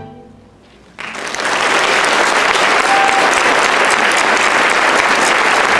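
The final chord of a string ensemble dying away in the hall. About a second in, audience applause breaks out and carries on steadily and loud.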